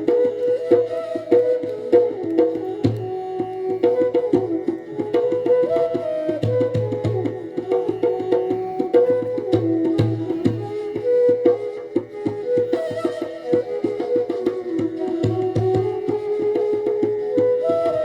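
Indian classical instrumental music: a melody of held notes with gliding ornaments over fast, steady hand-drum strokes.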